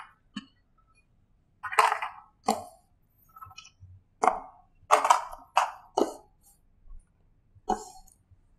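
About seven short, irregular taps and clacks against a whiteboard as a paper sheet is pressed flat on it and held in place with small round magnets.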